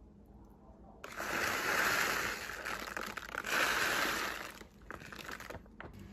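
Bag of frozen berries crinkling as it is handled and tipped out over a bowl, in two swells, then falling quiet with a few small ticks near the end.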